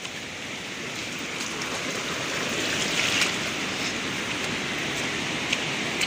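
Steady rush of running water from a small brook swollen by days of monsoon rain, growing gradually louder.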